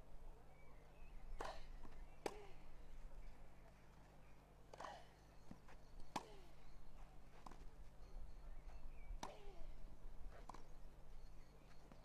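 Tennis rally: a ball struck back and forth with rackets, about seven sharp hits spaced one to two seconds apart.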